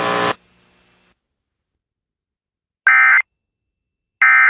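Emergency Alert System end-of-message data bursts: two short, loud, identical screeching digital bursts about 1.3 s apart, the coded signal that closes a severe thunderstorm warning broadcast. Before them, a steady buzzy tone cuts off a fraction of a second in.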